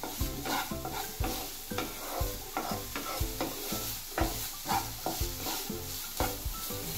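A wooden spatula stirs and scrapes chopped onion, carrot and French beans around a nonstick frying pan in quick repeated strokes. Under the strokes is a steady sizzle of the vegetables sautéing in butter over a medium flame.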